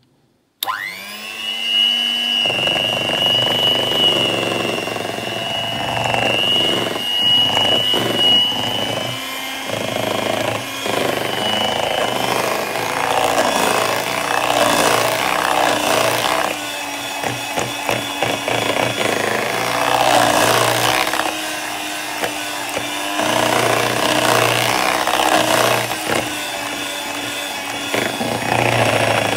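Gold Line electric hand mixer switching on about half a second in, its pitch rising as the motor spins up, then running steadily with a high whine as its beaters churn and scrape through cream cheese batter in a stainless steel bowl.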